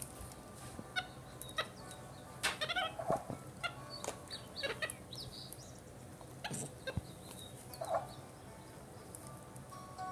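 Capuchin monkey giving short, scattered chirps and squeaks, with a quick run of them around three seconds in.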